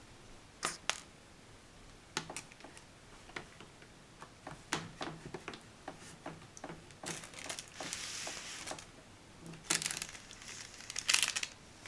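Small plastic clicks and taps with crinkly rustling as a laptop's LCD panel and plastic lid parts are handled and worked loose, with a louder patch of rustling about two thirds of the way through and a cluster of sharper clicks near the end.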